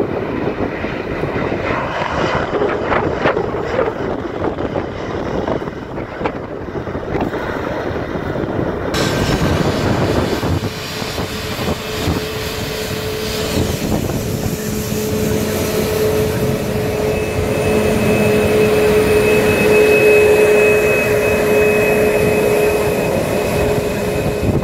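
Boeing 737 MAX 8's CFM LEAP-1B turbofan engines: a broad jet rumble as the airliner moves along the runway, then, after a cut about nine seconds in, closer engine noise as it taxis, with a steady high whine over the rumble that is loudest about twenty seconds in.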